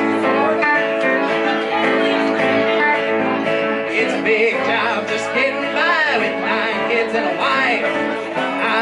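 Live country band playing a song with no vocals yet: electric guitar, acoustic guitar and upright bass. From about halfway through, a melody line with bending, wavering notes rides on top.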